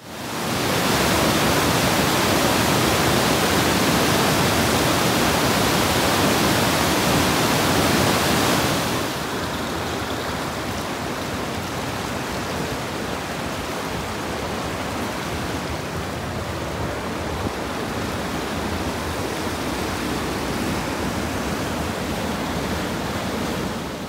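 Mountain creek whitewater rushing over granite boulders, a steady loud rush. About nine seconds in it drops to a softer, duller rush.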